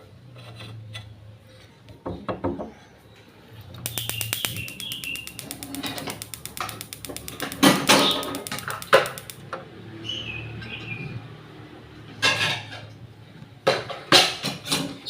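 Metal parts of a gas stove being handled during repair: scattered clanks and knocks, with a rapid, even run of clicks lasting about five seconds in the middle. Birds chirp faintly in the background.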